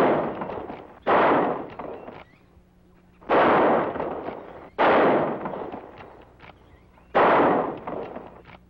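Five rifle shots at uneven intervals, each a sharp crack trailing off in an echo over about a second.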